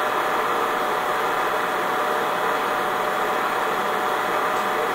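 Steady, even hum-and-hiss of room background noise, like a fan or air handler running, with no speech.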